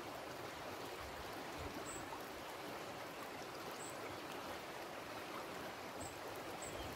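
Steady rush of river water flowing.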